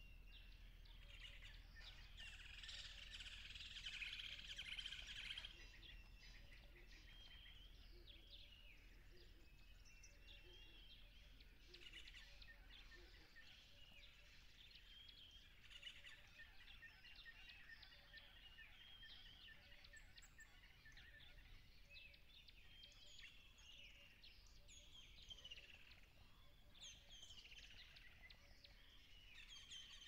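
Faint chorus of small birds chirping and twittering, many short high calls throughout, densest about two to five seconds in.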